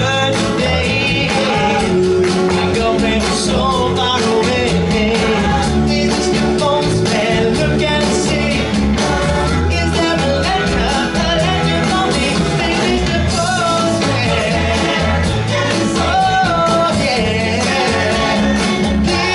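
Live pop band music with a steady beat, and a male vocal group singing a 1960s Motown song.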